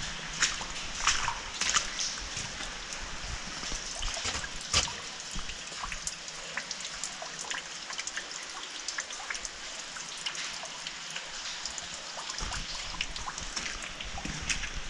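Water dripping and trickling inside a railway tunnel: a steady patter of many small drops, with a few sharper splashes in the first five seconds.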